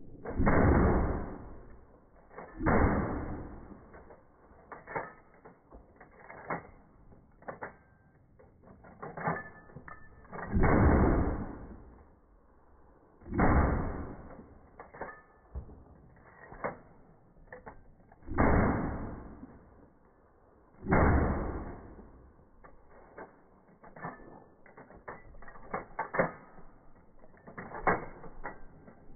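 Mosin-Nagant rifles firing 7.62x54R rounds, slowed down so that each shot is a long, low, smeared boom; six shots come in pairs. Between them come quick clicks and clacks of the bolts being worked.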